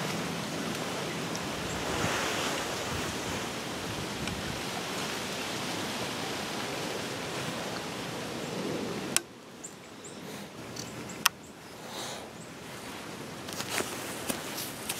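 Steady rushing wind noise that stops abruptly about nine seconds in. After that it is quieter, with a few sharp clicks and light rustles of clothing and gear being handled.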